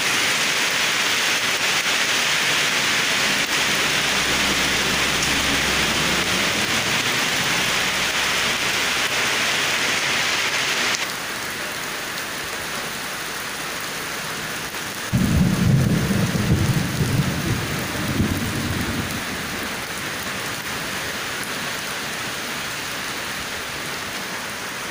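Heavy rain pouring down, a steady hiss that changes abruptly to a quieter, duller tone about eleven seconds in. About fifteen seconds in, a loud low rumble starts suddenly and fades away over about four seconds.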